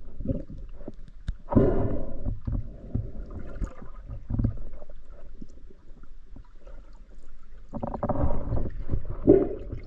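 Water sloshing and gurgling in uneven surges over a low rumble, louder about a second and a half in and again near the end.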